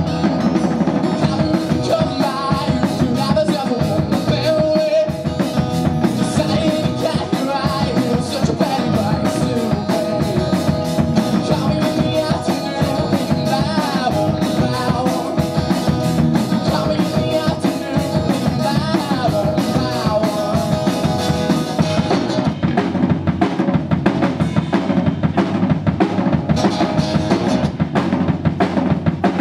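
Live acoustic rock: a steel-string acoustic guitar strummed over a drum kit keeping a steady beat, with a man singing.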